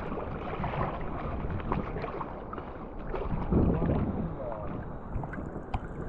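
Steady rush of wind and surf from a heavy typhoon swell, with wind buffeting the microphone.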